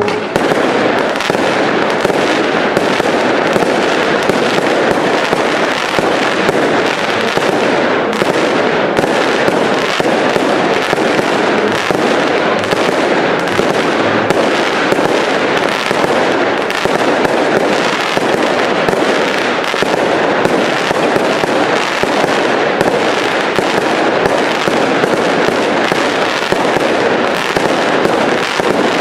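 Firework cakes (multi-shot batteries) firing as a display: a dense, unbroken barrage of pops, bangs and crackle in quick succession, at an even loudness throughout.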